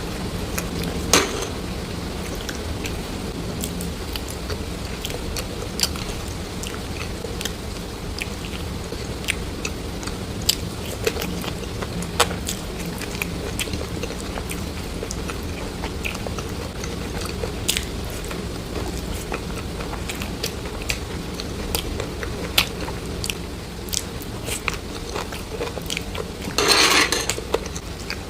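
Close-miked eating sounds: chewing and biting, with scattered sharp clicks and crackles over a steady low hum. One longer, louder crunchy burst comes near the end.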